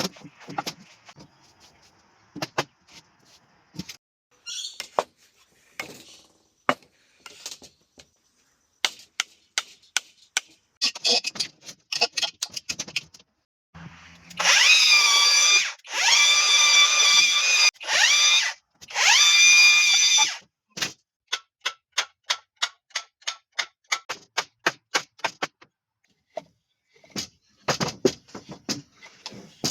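Power drill running three times in a row, its motor whine rising as each run starts, as it drives into wood. Around it are sharp clicks and knocks of parts and tools being handled, and after the drilling comes a long, even series of clicks.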